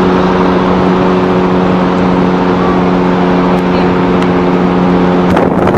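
Motorboat engine running at a steady speed under way, an even hum over the rush of water and wind. The engine note breaks off near the end.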